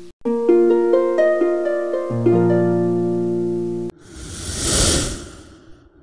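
Background music of gently plucked, harp-like notes that cuts off suddenly about four seconds in. It is followed by a rushing noise that swells and fades away.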